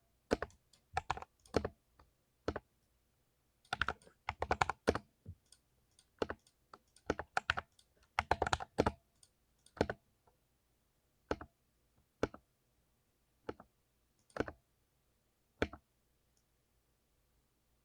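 Mechanical keyboard with Cherry MX Silver linear switches being typed on, with thocky keystrokes. Quick flurries of key presses for the first ten seconds or so, then single keys pressed every second or two.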